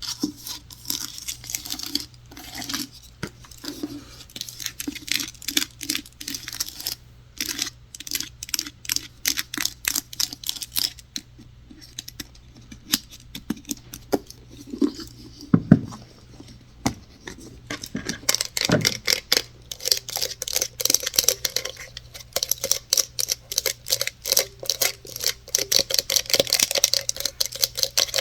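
Rapid tapping and scratching on hard objects: many quick, sharp taps that come faster and more steadily toward the end, with two deeper thumps around the middle.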